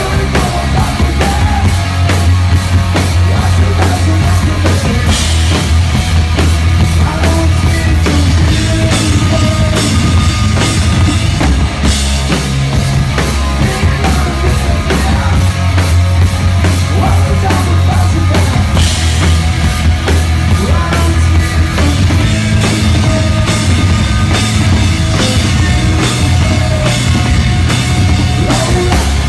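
Live rock band playing loud: electric guitar and two drum kits pounding together, with a singer at the mic. Heard from right beside one of the drum kits, so the drums and cymbals are up front.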